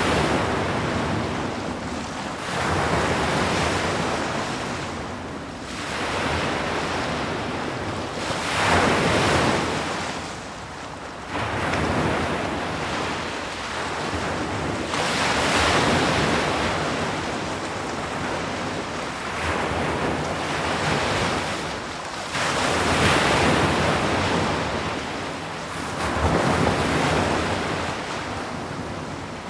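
Ocean waves breaking and washing up a shore, the surf swelling and falling away in repeated surges every three to four seconds.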